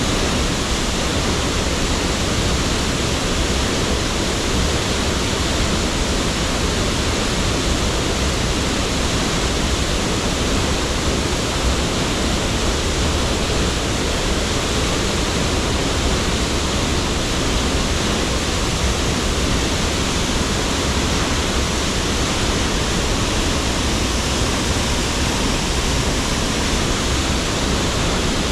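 Silverton Falls, a cascading mountain waterfall, rushing loudly and steadily close by.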